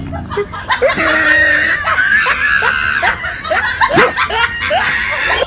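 Laughter: a quick run of short rising 'ha' sounds, about three a second.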